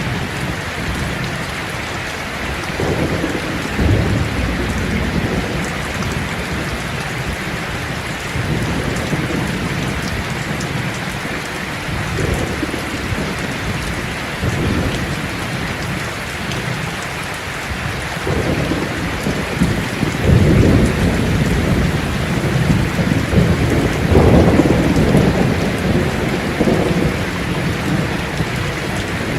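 Heavy rain falling steadily in a thunderstorm, with repeated low rolls of thunder, the strongest and longest about two-thirds of the way through.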